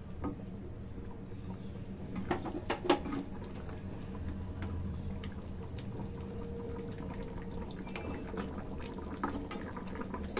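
Chicken curry gravy simmering in a steel wok over a steady low hum, with a metal spoon clinking and scraping against the pan, sharpest in a few knocks about two to three seconds in and lighter again near the end.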